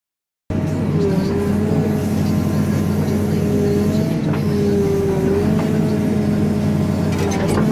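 CAT 432F2 backhoe loader's diesel engine running as the backhoe arm works the sand, with a whine over it that wavers up and down in pitch. The sound starts abruptly about half a second in, and a few sharp clicks come near the end.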